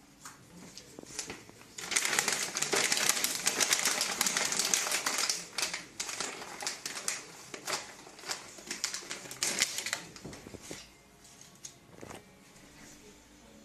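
Gift-wrapping paper crinkling and rustling as hands gather and fold it. A dense stretch of crackling starts about two seconds in, then thins to scattered crackles that die away.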